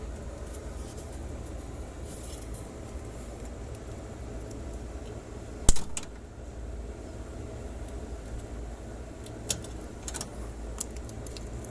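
Small clicks and metallic ticks from tools and wire being handled at an electrical panel, with one sharp loud click about halfway through and a few lighter ones near the end, over a steady low hum.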